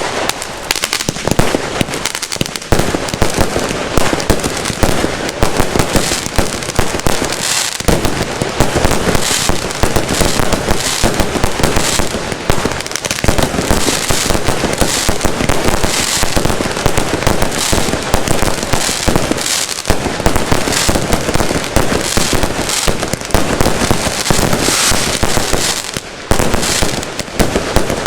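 Fireworks going off in a dense, continuous barrage of bangs and crackles, dipping briefly near the end.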